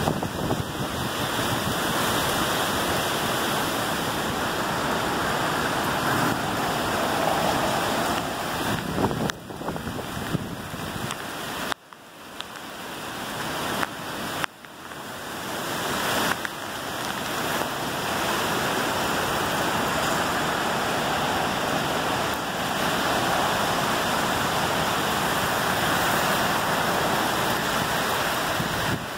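Heavy rain and wind of a severe thunderstorm, a steady rushing that dips sharply twice near the middle and then builds back.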